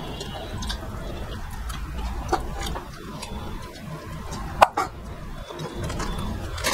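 Two people eating rice and fish with their hands: moist chewing and lip-smacking, with a few short sharp clicks, the loudest about four and a half seconds in.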